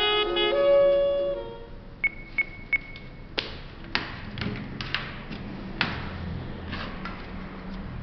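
A jazz saxophone tune playing from a homemade MP3 player ends about a second and a half in. Three short high beeps follow, then a scattering of sharp clicks and knocks as the device is handled.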